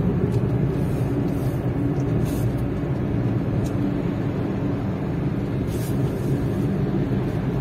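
Steady road and engine noise inside a car's cabin while cruising at about 60 km/h.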